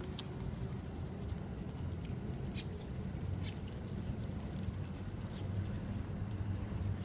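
A Shiba Inu biting and chewing grass, heard as scattered small crunching clicks, over a steady low background rumble.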